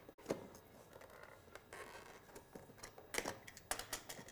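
A small cardboard product box being opened with a utility knife: faint scraping and rubbing of card, with scattered small clicks and taps.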